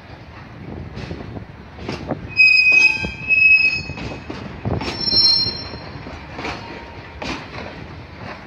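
Freight train of flat wagons loaded with rails rolling slowly on curved yard track, its wheels squealing in high-pitched tones about two and a half seconds in and again around five seconds in. Knocks of wheels over rail joints and points repeat roughly every second underneath.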